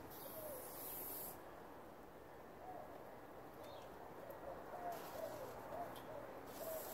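Water hissing through a garden hose's shut-off valve, cutting off abruptly about a second in as the valve is closed. After that comes a faint outdoor background with a few soft cooing bird calls.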